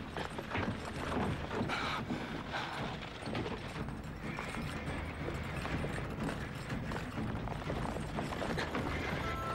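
Horses' hooves and the rattle of a horse-drawn carriage on the move, with a run of sharp knocks in the first couple of seconds. Music comes in near the end.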